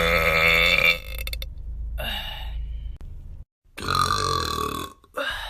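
A person burping loudly: a long burp at the start that trails off over about three seconds, then a second long burp about four seconds in.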